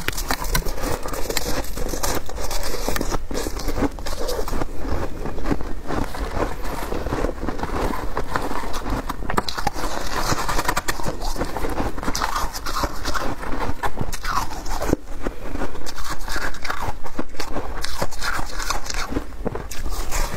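Close-miked crunching of shaved ice as it is bitten and chewed, mixed with gloved hands scraping and pressing the ice in a glass dish. A continuous run of crackles and crunches, with no pause.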